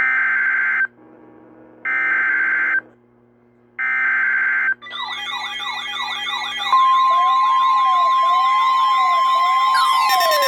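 Emergency Alert System severe thunderstorm warning tones: three short bursts of data-header tones about two seconds apart, each lasting about a second. Layered warbling alert tones sweeping up and down follow, a steady high tone joins about seven seconds in, and more sweeping tones come in near the end.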